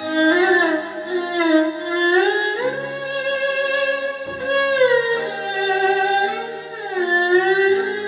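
Instrumental intro of a karaoke backing track: a violin-like string melody that slides between notes over held low notes.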